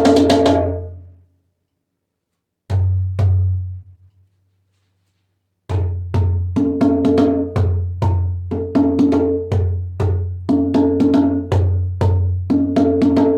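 Bougarabou drum with a medium-thick camel-skin head tuned to mid pitch, being played: a burst of strokes that dies away, a short phrase, a pause, then a steady rhythm of about two strokes a second, each stroke with a deep boom and a ringing tone above it.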